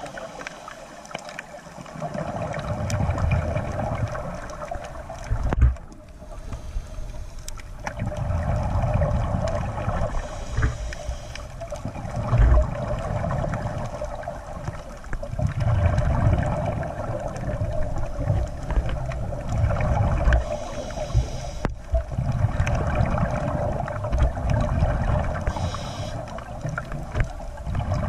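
Underwater sound through a camera housing on a scuba dive: low bubbling surges every few seconds, the rhythm of a diver's regulator exhaling, over a steady hum. There are two sharp knocks, one about a quarter of the way in and one near the middle.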